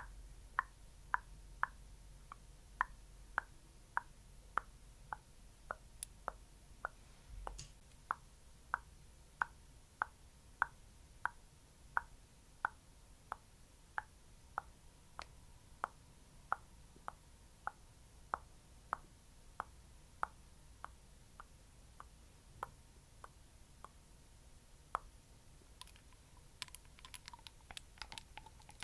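Rhythmic soft patting, one plop about every half second, as a thick skincare product is patted on; a quicker, denser flurry of taps starts a little before the end.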